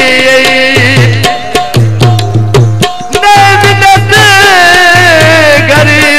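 Punjabi folk music: a melody line of wavering held notes over a repeating drum beat. The melody thins out briefly about halfway through, while the drum carries on.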